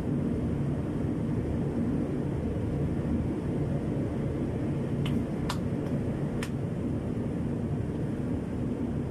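Steady low machine rumble of a workshop, with three light clicks of hand tools working on the vehicle's underside a little past halfway.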